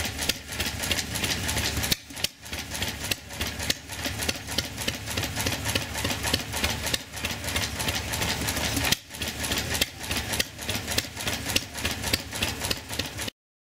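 Small antique stationary gas engine running, a rapid, even clatter of firing strokes with two brief lulls, about two seconds in and about nine seconds in; the sound cuts off suddenly near the end.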